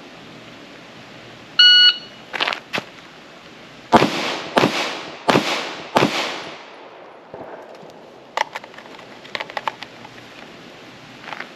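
Shot-timer beep, two sharp clicks, then four 9mm pistol shots from a Glock 19 fired about 0.7 seconds apart, each followed by a short fading echo. Softer clicks near the end as the pistol goes back into its holster.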